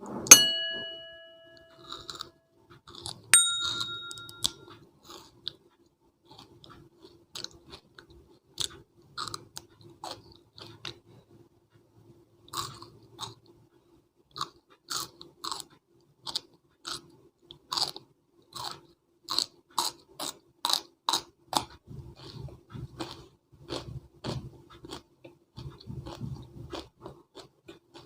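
Two bell-like dings in the first few seconds, then close-up crisp crunching of raw vegetables being bitten and chewed, irregular crunches about one or two a second.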